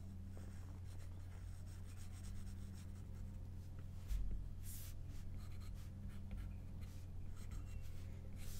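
Stylus tip scratching and tapping on an iPad's glass screen in short drawing strokes, faint, over a low steady hum, with a soft thump about four seconds in.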